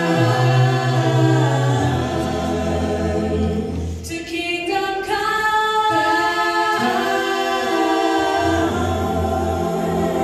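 Mixed vocal ensemble of men and women singing a cappella in harmony, holding long sustained chords over a deep bass line, with a short break about four seconds in.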